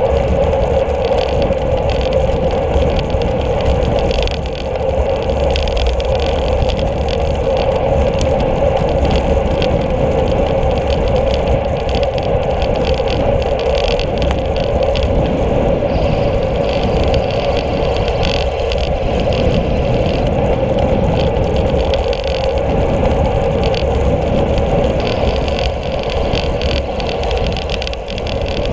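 Steady wind rush and rumble on the microphone of a camera mounted on a moving road bike, mixed with rolling noise from the road.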